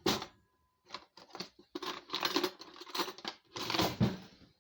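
A stick of butter being handled and cut into pieces with a knife: crisp cutting and wrapper-crinkling sounds with small clicks, in several short bursts.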